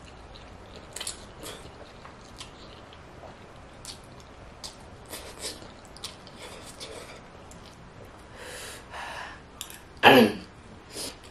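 A person eating 2X spicy instant noodles: slurping strands and chewing, with many short wet smacks and a few longer sucking slurps. About ten seconds in there is one short, loud vocal exclamation that falls in pitch.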